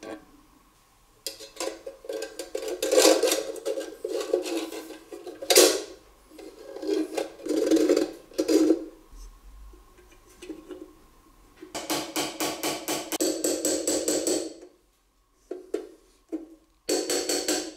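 Painted sheet-metal parts of a Chalwyn Far East hurricane lantern clicking, knocking and scraping against each other as they are handled and fitted together. Bursts of clatter give way to a run of quick, even clicks for a couple of seconds, then a short break and one last burst near the end.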